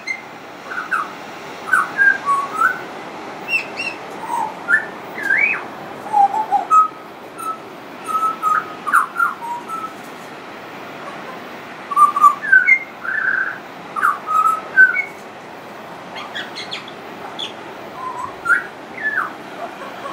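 Pied butcherbird singing: phrases of short, fluting whistled notes that slide up and down in pitch, with brief pauses between phrases, over a steady background hiss.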